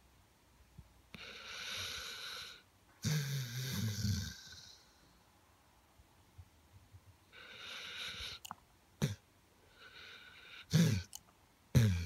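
Basset hound snoring in its sleep: long breathy inhales through the nose, each followed by a louder low snore or short snort, in about three cycles, with a few sharp snuffling clicks between them.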